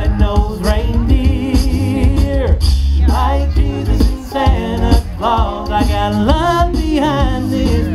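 Male a cappella group singing a Christmas song in close harmony through microphones and a PA, a low bass voice underneath and vocal percussion keeping the beat.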